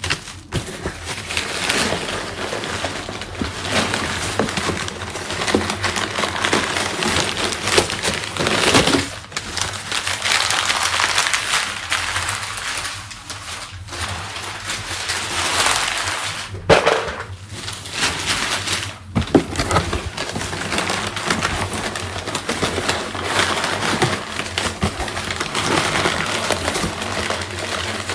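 Crumpled packing paper rustling as it is dug through and pulled out of a shipping box, with a few brief pauses.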